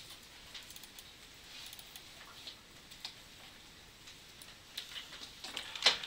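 A few scattered computer mouse clicks, then a quick run of keyboard keystrokes near the end as a file name is typed.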